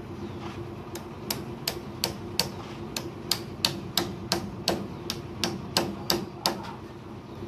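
A tool striking brick during bricklaying: about sixteen sharp knocks, roughly three a second, starting about a second in and stopping near the end, over a steady low hum.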